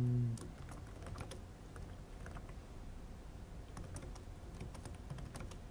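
Typing on a computer keyboard: quiet, irregular keystrokes coming in short runs.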